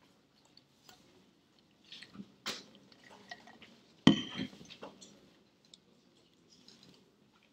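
Scattered small clicks and knocks, the loudest a sharp knock with a brief ring about four seconds in.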